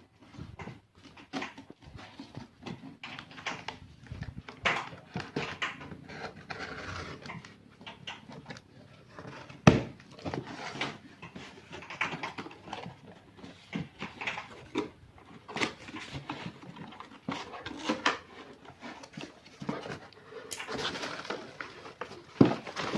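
Hands opening a speaker's cardboard box and packaging: irregular rustling, scraping and small clicks, with a single sharp knock about ten seconds in.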